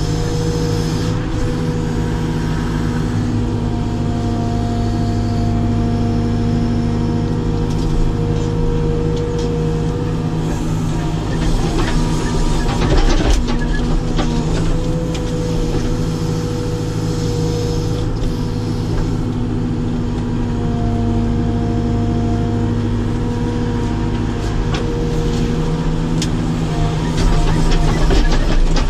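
Caterpillar 432F2 backhoe loader's diesel engine running steadily under load, heard from inside the cab. A hydraulic whine comes and goes as the backhoe arm is worked, with a short burst of knocking and clatter about halfway through.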